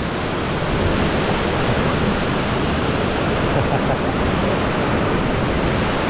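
Waterfall pouring close to the microphone: a loud, steady rush of falling water.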